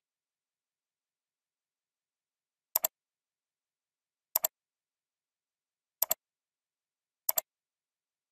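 Computer mouse clicking: four sharp clicks, each a quick double snap, spaced one to two seconds apart, with dead silence between.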